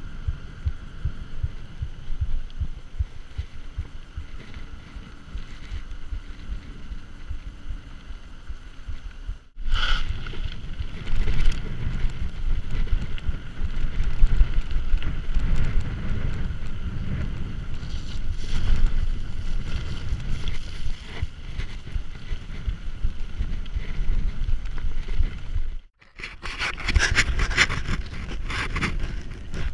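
Wind buffeting an action camera's microphone as a Giant Trance mountain bike rolls along, with rumble and rattle from the tyres and bike over road and dirt track. The sound jumps louder about ten seconds in. After a short break near the end it turns into a rapid, gritty rattling.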